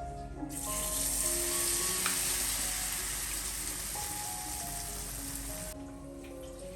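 Food sizzling in hot oil as it fries, a dense hiss that starts about half a second in and cuts off suddenly near the end.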